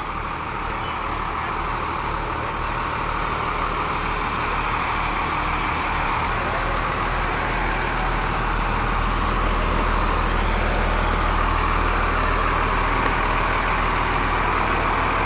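Fire engine's diesel engine running steadily at the scene, growing gradually louder as the engine is approached.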